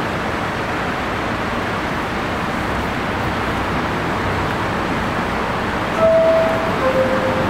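Steady noise of an R62A subway train standing at the platform with its doors open. About six seconds in, the train's two-tone door chime sounds, a higher note then a lower one, signalling that the doors are about to close.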